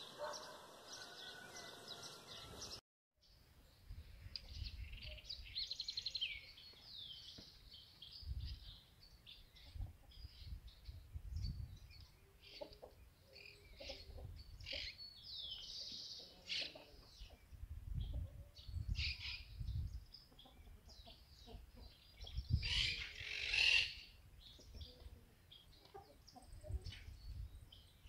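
Many small birds chirping and calling outdoors, with gusts of wind rumbling on the microphone. The sound drops out briefly about three seconds in, and a louder, harsher bird call stands out about 23 seconds in.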